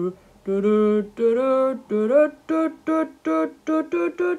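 A single voice sings a wordless tune: two longer held notes, then a quick run of short notes about three a second.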